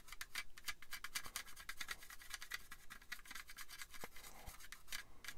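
Pencil scratching over the grey plastic hull panel of a scale model kit in quick, repeated short strokes, sketching marks onto the part.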